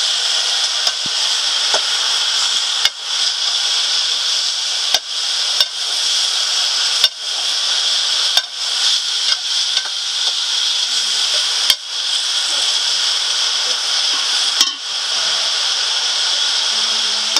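A steady high-pitched hiss with sharp knocks at irregular intervals, every one to three seconds.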